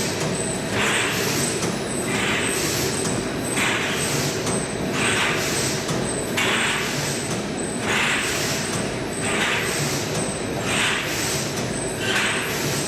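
Hexagonal wire netting weaving machine running: a steady mechanical din with a hissing stroke that repeats about every second to second and a half as it weaves the mesh.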